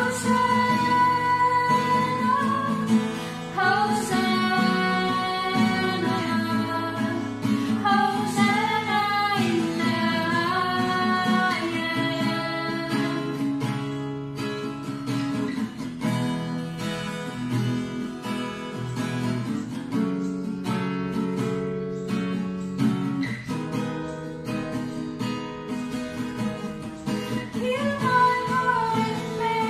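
Women singing a worship song to a strummed acoustic guitar. Partway through, the voices mostly drop out for a stretch of guitar alone, and the singing comes back near the end.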